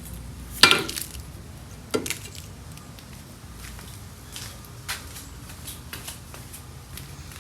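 Loose metal car parts knocking and clattering as they are handled, with a loud knock just under a second in, another at about two seconds and a few fainter taps later, over a low steady hum.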